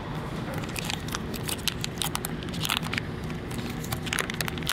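Plastic food packaging crackling and clicking as it is handled, in irregular sharp snaps, over a steady low hum.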